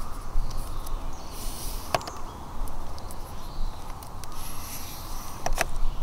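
Close, uneven scuffing and rustling like someone walking on a forest path while carrying gear, with a few sharp clicks about two seconds in and twice near the end.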